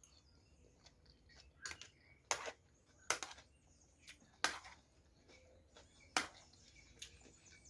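Close-miked eating sounds: about half a dozen short, sharp wet clicks and smacks of chewing, spaced irregularly between pauses.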